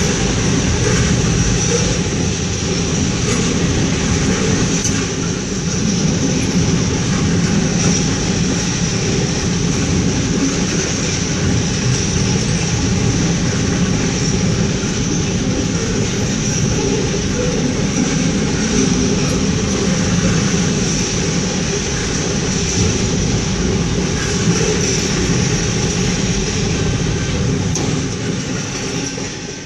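A double-stack intermodal freight train's cars roll past: a loud, steady rumble of steel wheels on rail that fades near the end as the last car clears.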